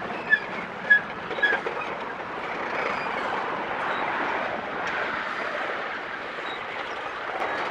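Tank cars of a freight train rolling slowly past on the rails: a steady rumble and rattle of wheels and trucks, with three short high squeaks in the first second and a half.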